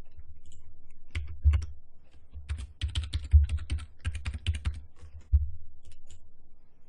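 Computer keyboard typing: a few single keystrokes, then two quick runs of typing in the middle, over a low hum.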